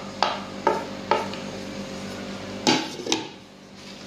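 Dishware clinking as chopped garlic is tapped off a plate into a glass mixing bowl. There are five sharp clinks: three evenly spaced ones, then two louder ones near the end.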